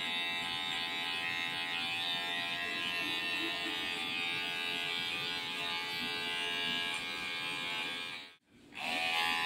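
Cordless electric hair clipper running steadily as it cuts short hair for a fade, an even motor hum. Near the end it cuts out for about half a second, then comes back, rising quickly in pitch to its running speed.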